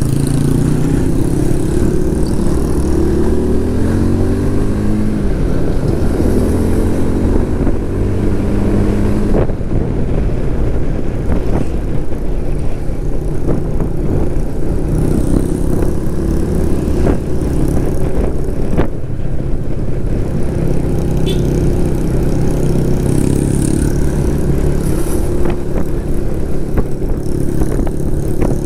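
Motorcycle engine running while riding, its pitch climbing again and again as it accelerates, over steady wind and road noise, with a few short knocks.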